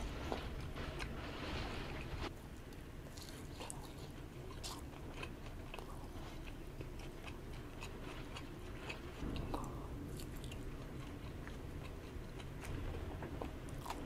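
A person chewing and biting food from a bento lunch, with many small sharp clicks and smacks from mouth and chopsticks. Under it runs a steady low rumble of typhoon wind outside.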